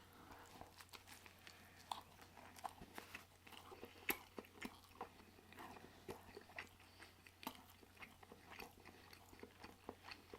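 Faint chewing of a soft, juicy pulled pork sandwich: irregular mouth clicks and smacks, one sharper click about four seconds in.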